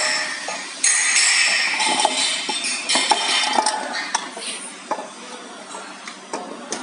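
Aluminium machine plates handled on a concrete floor: metal scraping with high ringing near the start, then a scatter of sharp clinks and knocks as a plate is slid and set into place.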